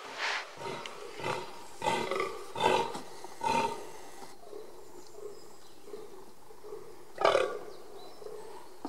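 Fallow deer buck groaning in the rut: five calls about one a second, then a pause and one more call about seven seconds in.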